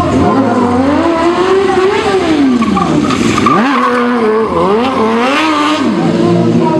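Motorcycle engine revved hard, its pitch rising and falling several times in quick succession, with tyre squeal and hiss from the rear tyre spinning, as in a burnout.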